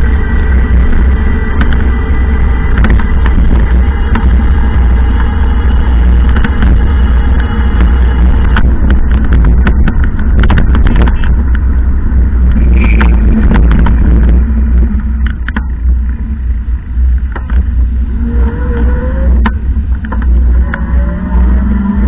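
Road noise of a vehicle driving on wet streets, picked up by a dashcam: a loud, steady low rumble with tyre hiss, and a tone rising in pitch near the end as it speeds up.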